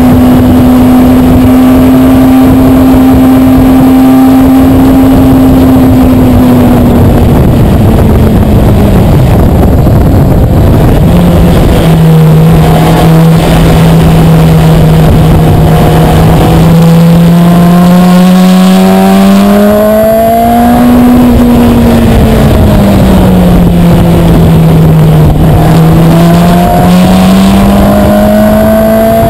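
Kawasaki ZX-6R 636's inline-four engine heard from the bike's onboard camera, with wind noise on the microphone. The revs hold steady, then drop after about six seconds as the bike slows for a corner and hold low. They then rise and fall twice as the rider works the throttle out of the turns.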